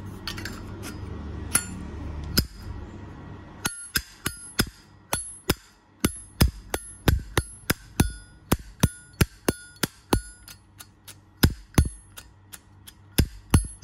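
Brushed-chrome Zippo lighter's hinged lid flicked open and snapped shut over and over. Each flick gives a sharp metallic clack with a short ring, two or three a second, starting about four seconds in. Before that there is soft handling noise and a few light clicks.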